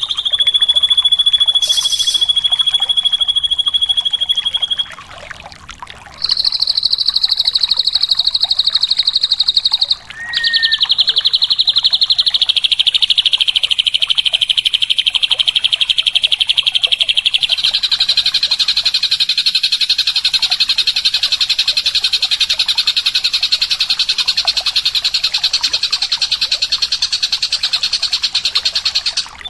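Drongo (srigunting) singing long, fast, buzzy trills, each held on one high pitch for several seconds, with the pitch shifting between phrases and two short breaks.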